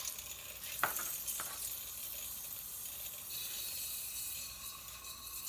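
Butane hissing as a can drains through a can tapper into a closed-loop extraction system held under vacuum, with a single sharp click about a second in. The hiss brightens a little past halfway.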